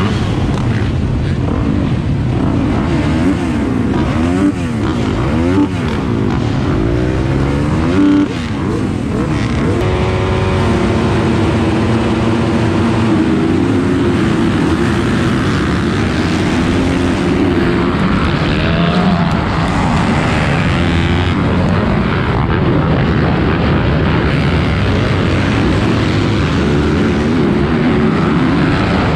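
Motocross bike engines revving up and down at the starting gate, then the rider's own bike accelerating hard, its pitch rising about ten seconds in, and running at full throttle among the pack of other dirt bikes.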